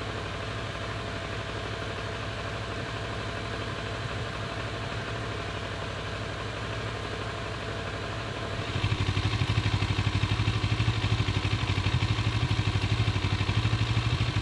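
Kawasaki ER-6n's parallel-twin engine idling fully warmed up, with an uneven, skipping beat that the owner suspects is an idle misfire. About nine seconds in it gets louder, with a stronger pulsing beat.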